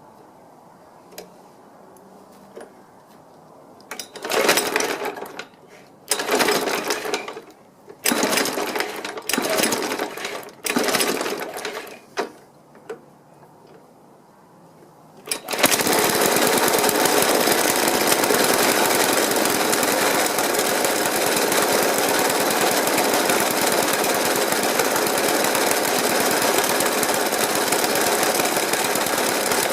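Suffolk Punch 30 lawnmower engine. After a few faint clicks comes a series of about five short bursts as it is started, then after a short lull it catches about halfway through and runs steadily. It idles rough, banging rather than ticking over smoothly, even after a carb clean and decoke.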